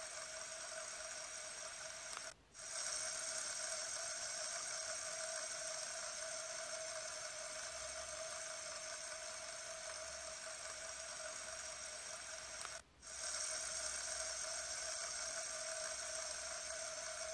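Fidget spinner whirring steadily on its ball bearing, a constant hum with a few fixed tones. It cuts out for a moment twice.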